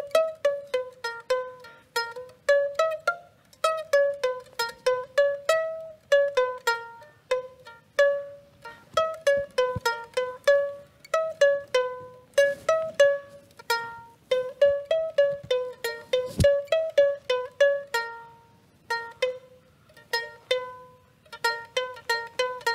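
Small ukulele plucked one note at a time, playing a simple melody of ringing notes, about two or three a second, with a few short pauses.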